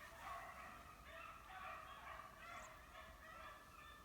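A pack of rabbit-hunting hounds baying faintly, with overlapping drawn-out cries: the dogs are running a rabbit.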